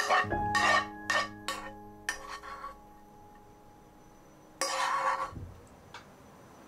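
Metal spoon scraping and clinking against a frying pan while spooning fried ground pork out of it: a quick run of about six short scrapes in the first couple of seconds, then one longer scrape a little past halfway.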